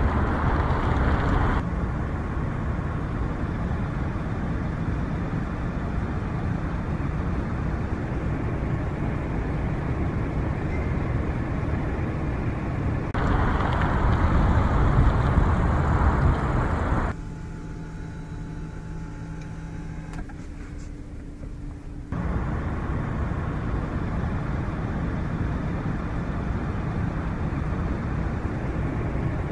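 Toyota Fortuner's 2.8-litre turbo-diesel engine running as the SUV is driven over rock: a steady low rumble whose level and character change abruptly several times, quieter with a faint engine hum for a few seconds past the middle.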